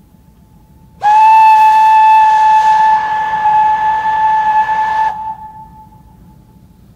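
Steam whistle of a Stroudley 0-6-0 tank locomotive: a faint whistle tone, then one long, loud, steady single-note blast that starts sharply about a second in and stops about four seconds later, dropping back to a faint tone that dies away. A low steady rumble runs underneath.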